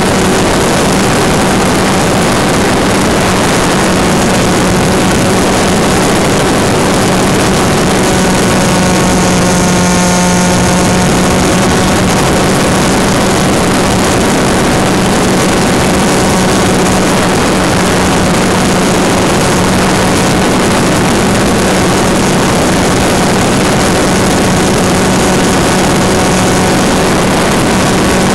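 Turnigy Park 250 brushless electric motor spinning a 5x4.3 propeller on a small flying wing in flight, heard through the on-board camera's microphone: a steady buzz under a loud hiss of noise. For a few seconds about ten seconds in, the motor's whine grows stronger with more tones in it.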